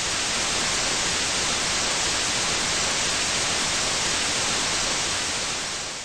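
Steady television-static hiss used as an editing transition effect, fading out near the end.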